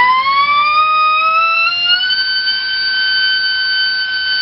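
2948 4800kv brushless in-runner motor driving a Gemfan 4045 carbon-reinforced nylon propeller on a 3-cell battery. A loud whine rises in pitch over the first two seconds as the motor is throttled up, then holds steady.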